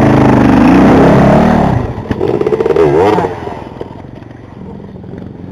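Off-road motorcycle engine revving hard, its pitch swinging up and down. There is a short dip about two seconds in, then another burst of revs. It settles to a much quieter low running after about three and a half seconds.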